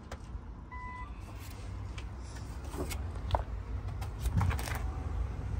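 Steady low background rumble, with a short beep about a second in and a few light taps later on.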